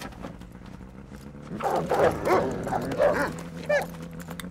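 Snowmobile engine idling steadily, then winding down and stopping near the end. For about two seconds in the middle, sled dogs bark and yip over it.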